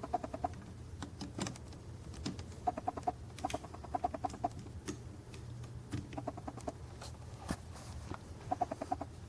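Short runs of rapid clucking calls from a bird, repeating every second or two, with faint scattered clicks.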